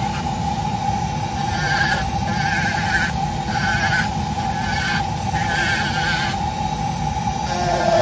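Rotary carving tool spinning a Kutzall carbide burr with a steady whine, the burr grinding into a thin basswood wing in short strokes about once a second, each stroke giving a wavering, higher grinding tone.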